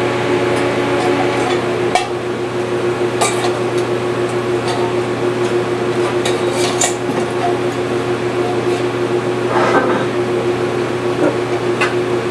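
Steady electrical hum from a TIG welding setup, with scattered light metallic clinks and taps from metal parts being handled.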